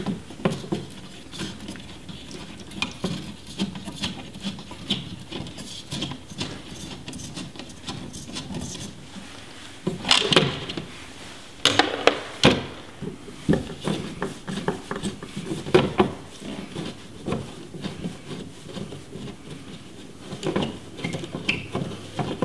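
Screwdriver and the old thermostat's plastic base being handled at the wall: scattered light clicks, taps and scrapes as its mounting screws are backed out. Louder rattling comes about halfway through, as the base is worked loose from the wall.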